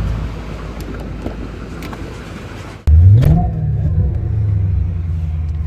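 Mercury Cougar's engine running. For the first few seconds it is a low rumble under wind noise on the microphone; then, after a sudden cut, it is heard from inside the cabin. There it is revved once, briefly, pitch rising then falling, and it settles back to a steady idle.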